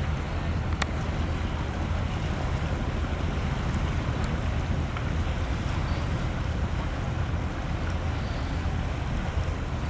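Wind buffeting the microphone in a steady low rumble, over an even hiss of wind and river water.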